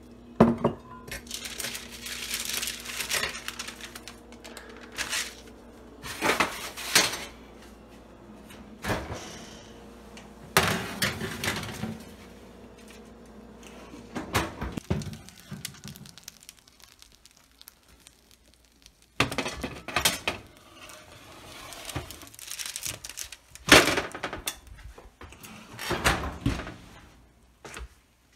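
Kitchen clatter: clinks and knocks from a glass measuring cup, a metal baking sheet and an oven being handled, in separate bursts every few seconds.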